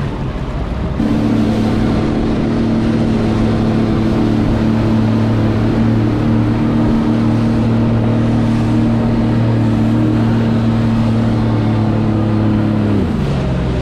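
Jet ski engine running at a steady cruising pitch over rushing water and wind, cutting in loud about a second in. Near the end its pitch slides down as the throttle comes off.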